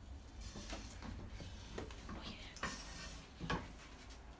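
Wooden spatula scraping and knocking against a non-stick frying pan as melting butter is spread around it: a few separate scrapes, with the loudest knock about three and a half seconds in.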